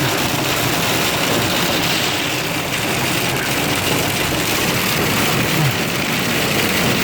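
Very hard rain pouring down in a steady, loud, unbroken rush.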